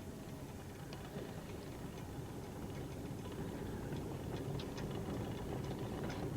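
Small boat's outboard motor running steadily while underway, a low rumble that slowly gets louder, with scattered light ticks.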